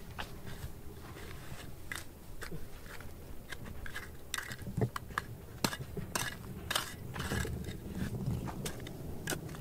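Irregular crunching, scraping and clinking of a hand tool digging and prying at gravel and rock. A low steady hum comes up near the end.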